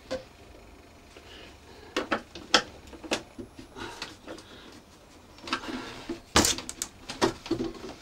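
Scattered knocks and clicks of tools and parts being handled on a wooden workbench, a screwdriver being laid down among them. The loudest is a dull knock about six and a half seconds in.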